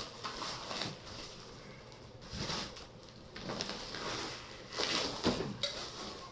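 Plastic parcel wrapping rustling and crinkling in several irregular bursts as a cardboard box is pulled out of it.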